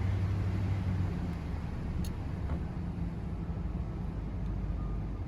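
Ford 4.6-litre V8 of a 1998 F-150 running steadily with an engine-flush additive circulating in its oil. The steady low hum changes about a second in, as the revs fall from about 1500 rpm toward idle. The engine runs smoothly, with no tick.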